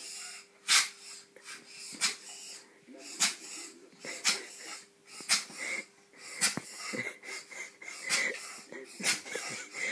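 A small dog barks over and over, with short sharp barks about once a second, at animals on a television.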